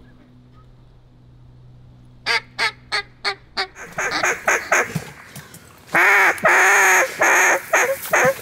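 Mallard duck calls blown by hunters: a string of evenly spaced quacks starting a couple of seconds in, then quicker notes, then loud, long calls near the end, calling to incoming ducks.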